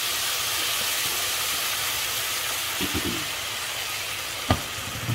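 Hot pan sizzling steadily as boiled split dal and its cooking water land on dill leaves and onions frying in oil. There is one sharp knock about four and a half seconds in.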